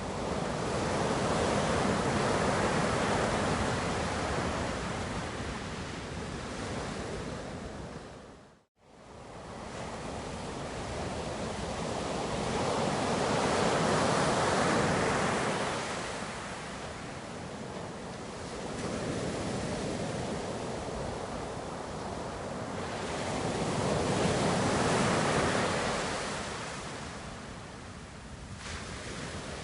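Ocean waves washing in, a steady rushing surf that swells and ebbs in slow surges about ten seconds apart. The sound dips out to silence for a moment about nine seconds in, then fades back.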